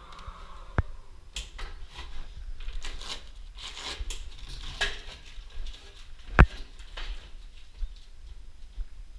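Irregular clinking, clicking and rustling of tools and metal parts being handled, with one sharp knock about six seconds in.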